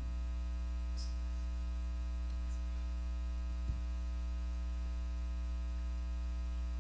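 Steady electrical mains hum with a buzzy edge, with one faint tick a little before four seconds in.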